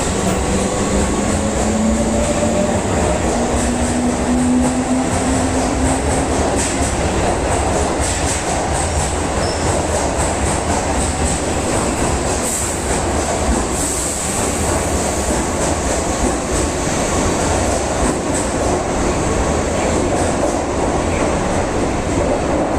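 Keihan electric train running: the motor whine rises in pitch over the first few seconds as it picks up speed, then gives way to a steady rumble of wheels on rail with occasional clicks.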